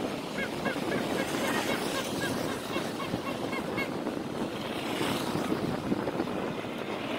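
Steady rush of wind on the microphone while riding a bicycle, with a run of short, high chirps in the first half.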